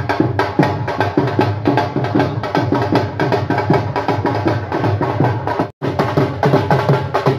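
Dhol drum beaten fast with sticks in a dense, steady rhythm. The sound breaks off for a moment about six seconds in, then the drumming resumes.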